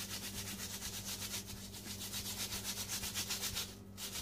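Gloved fingertips rubbed quickly together, about eight scratchy strokes a second, sifting glitter down onto a soap loaf; the rubbing stops briefly near the end.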